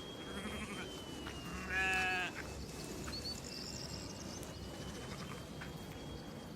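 A sheep bleats once, a single wavering call of about half a second, over a faint steady high-pitched whine.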